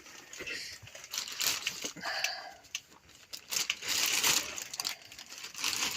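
Plastic bin bag being handled, rustling and crinkling in irregular bursts.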